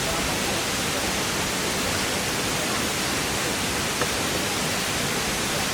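Waterfall: a steady, even rush of falling water, with one faint click about four seconds in.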